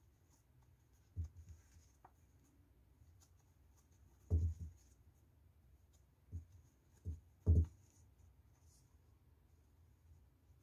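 Quiet handling noise of crochet work: faint scratchy rubbing of yarn and crochet hook, with a few soft, short low thumps, the loudest about four and seven and a half seconds in.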